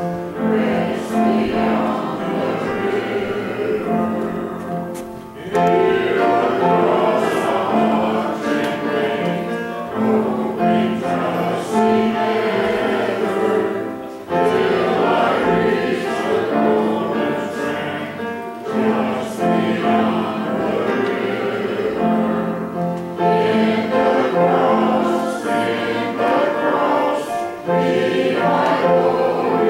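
A hymn sung by a group of voices, in long held phrases with brief breaks between the lines.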